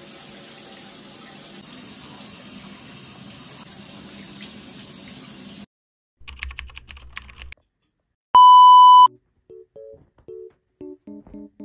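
Shower head spraying water steadily for about six seconds, then stopping. After a short gap comes a brief low rumble with clicks, then a loud single electronic beep lasting under a second. A few short musical notes follow near the end.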